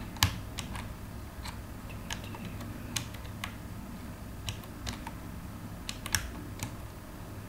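Computer keyboard keys clicking one at a time at an uneven pace as a word is slowly typed, with a steady low hum underneath.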